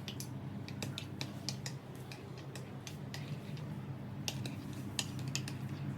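Scattered light clicks and taps of kitchen utensils against cookware, irregularly spaced, over a steady low hum.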